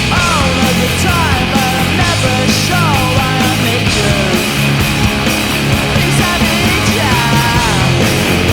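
Loud rock music: a hockey arena's goal song playing, with gliding melodic lines over a steady driving rhythm.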